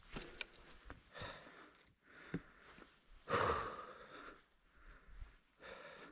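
A person breathing heavily, a noisy breath about every two seconds, the loudest a little over three seconds in.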